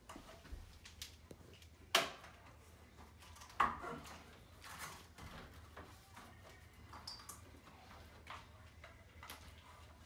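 Long metal rack panels being handled and fitted into a metal rack frame: scattered light knocks and rattles, with two sharper metal clanks, one about two seconds in and one a little later that rings on briefly.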